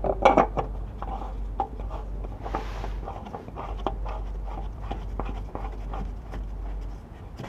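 Irregular scraping and light clicking as a cartridge oil filter housing cap, with a new filter element fitted, is screwed back in by hand. A brief hiss comes about two and a half seconds in.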